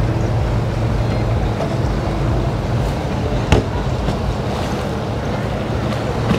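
Boat motor running on the river, with wind on the microphone and choppy water; the low hum is strongest in the first couple of seconds. A single sharp click comes about three and a half seconds in.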